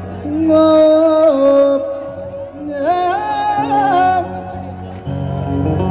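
A singer's amplified voice holding two long, wavering, melismatic phrases over a steady low instrumental drone, the opening of a live folk or Sufi-style song.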